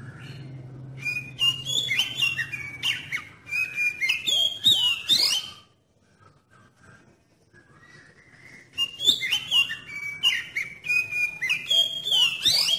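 Oriental magpie-robin singing: two loud runs of varied whistled notes with quick sweeps up and down, separated by a pause of about three seconds.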